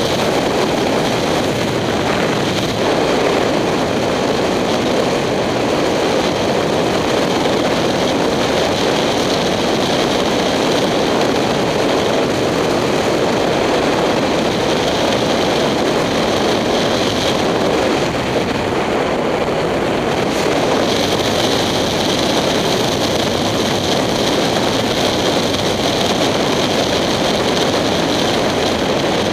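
Steady wind rush over a helmet-mounted camera at road speed, with the engine of a 2007 Kawasaki Ninja 250 running underneath.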